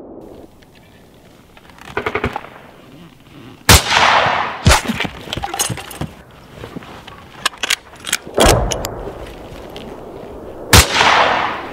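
Rifle gunfire in a battle scene: four loud shots, about a third of the way in, a second later, and twice in the second half, three of them trailing a long echo. Quick sharp clicks and rattles come between the shots.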